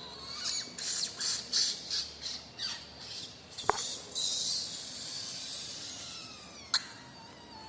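Cockatiels calling: a quick run of short, shrill squawks, then a longer harsh screech about four seconds in. Two sharp clicks, one in the middle and one near the end.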